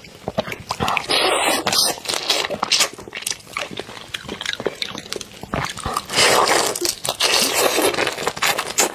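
Close-miked eating of large red prawns: prawn shells crackling and tearing as heads are pulled off and bodies peeled, mixed with sucking and chewing at the mouth. Longer stretches of sucking and crackling come about a second in and again from about six seconds in.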